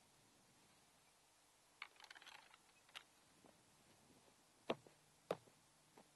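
Near silence, broken by a handful of light clicks and knocks, the two sharpest close together near the end.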